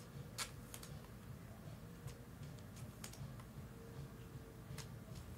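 Scattered light clicks and taps of trading cards being handled and slid into plastic card sleeves at a desk, over a faint steady low hum.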